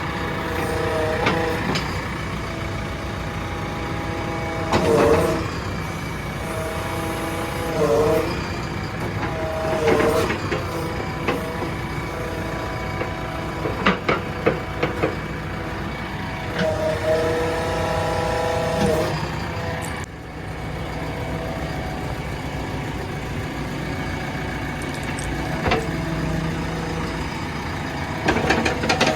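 A vehicle engine running steadily, with several whining tones that bend up and down for a second or two at a time and a few sharp clicks partway through.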